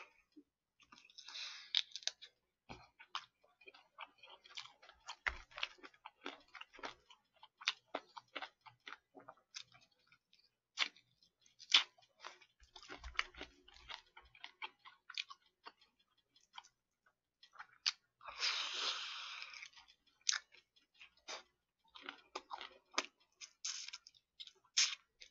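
Close chewing and crunching of crispy fried chicken, with many short, sharp crackles. A hiss of about two seconds comes roughly two-thirds of the way through.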